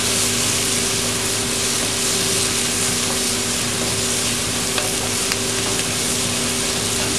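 Lamb and vegetables sizzling in a hot saucepan as they are stirred to coat them in tomato purée: a steady hiss with a few faint spoon ticks, over a steady hum.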